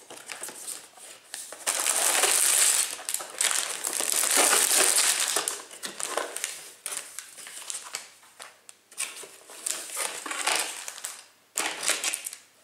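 Lego set box being opened and its contents pulled out: the plastic bags of Lego pieces crinkle and rustle against the cardboard, loudest in two long stretches about two and four seconds in, then in smaller scattered crinkles.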